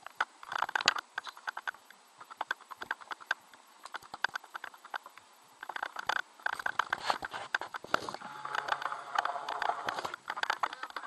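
Rapid, irregular clicking and knocking, thickest in the second half.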